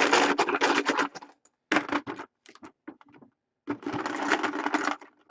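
Chips rattling as they are shaken in a container for a random draw: two bouts of rapid clattering, with a few loose clicks between them.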